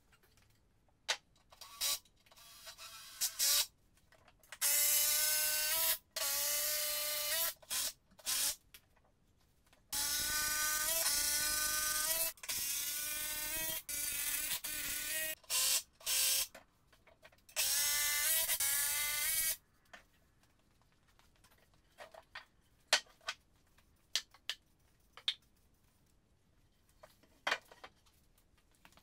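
Power drill running in several bursts of a few seconds each, its whine shifting in pitch, followed by scattered light clicks and knocks.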